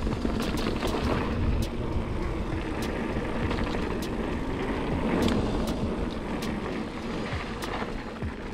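Mountain bike riding down dirt singletrack: a steady rumble of tyres on the trail and wind on the microphone, with scattered sharp clicks and rattles from the bike over bumps.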